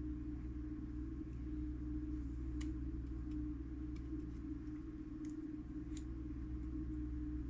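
A few small, sharp clicks of tweezers and metal clock parts being handled, over a steady low hum.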